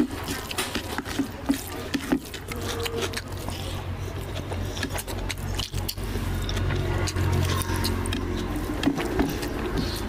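Close-up wet squishing and smacking of a bare hand kneading rice with oily curry on a plate, mixed with the sounds of chewing, a string of short sharp clicks over a low steady hum.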